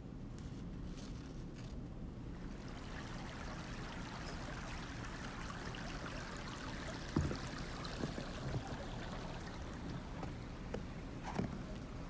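Water babbling and trickling in a shallow creek, growing clear a couple of seconds in, with a few soft thumps in the second half.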